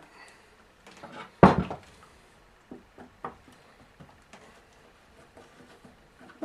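Handling noise of a chainsaw being taken apart with a flat screwdriver: one loud knock about a second and a half in, then scattered light clicks and taps of the tool against the saw's plastic cover.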